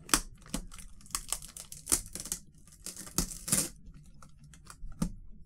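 Packing tape being peeled and plastic packaging crinkling as a toy figure is unboxed, in a run of short, irregular crackles and snaps.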